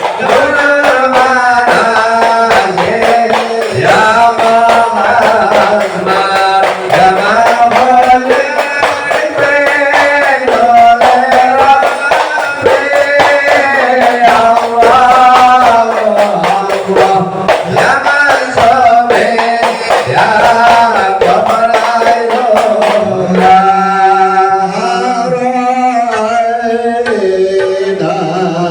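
A sung Islamic devotional song (sholawat) with a male voice carrying the melody over steady drum percussion.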